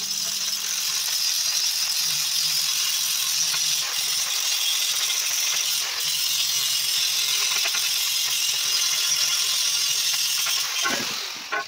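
Angle grinder grinding the steel of a CNG cylinder at its welded seams, with a steady hiss and whine of the disc on metal. It breaks off briefly near the end, then starts again.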